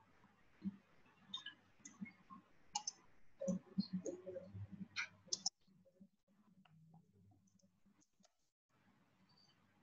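Computer keyboard being typed on: a quick run of key clicks for about five seconds, then a few scattered keystrokes, over a faint steady hum.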